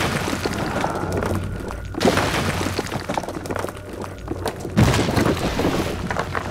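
Horror sound-design hits: dense crackling, crashing noise with low booms, surging again about two seconds in and near five seconds in.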